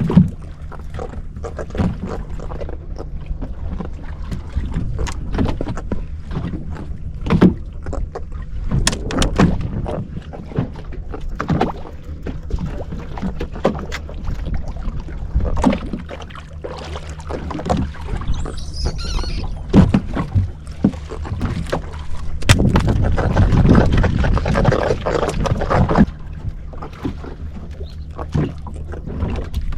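A fishing boat's engine runs steadily under scattered knocks and clatters on board. About three quarters of the way through there is a louder stretch of rushing noise.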